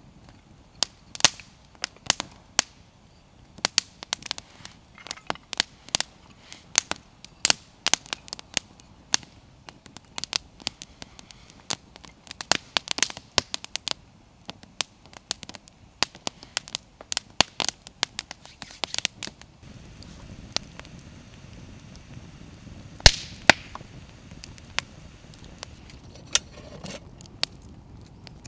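Small campfire of fatwood and split kindling crackling as it catches, with sharp irregular pops several times a second. From about twenty seconds in, a low steady noise joins under the pops, and one loud pop comes a few seconds later.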